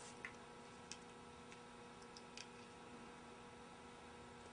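Near silence with a faint steady electrical hum and a few faint, scattered ticks from floral tape and wire stems being handled.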